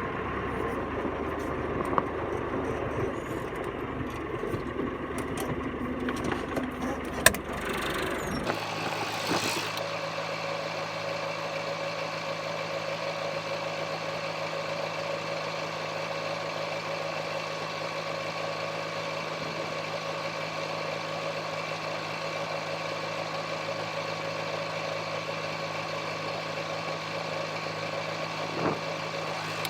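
A vehicle engine running steadily. About eight seconds in, the low rumble gives way to an even hum with steady tones.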